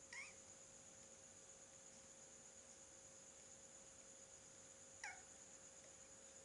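Near silence with a faint steady high whine, broken twice by a small animal's short squeaky call: once right at the start and once about five seconds in, the second falling in pitch.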